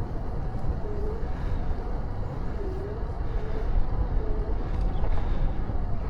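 Wind buffeting the microphone of a bicycle-mounted camera while riding, a steady low rumble, with a faint short dipping squeak-like tone every second or two.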